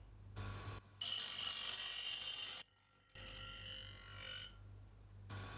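Angle grinder sanding a wooden axe handle pressed against its disc: a high-pitched whine with scraping, loudest for about a second and a half in the middle, broken by a few abrupt silent gaps.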